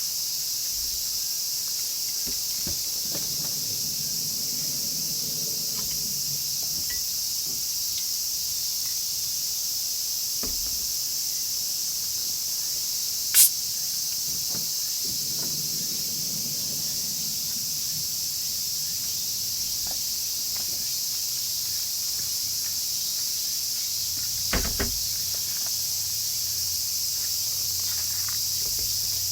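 Steady high-pitched chorus of insects, with one sharp click about 13 seconds in and a brief double knock about 25 seconds in.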